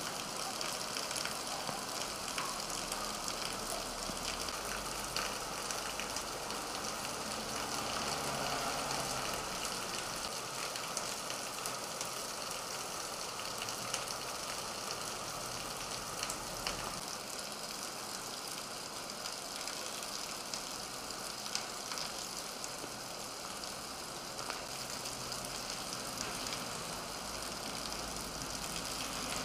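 Heavy rain pouring onto pavement and parked cars: a steady hiss of dense pattering drops, with a low rumble that comes and goes.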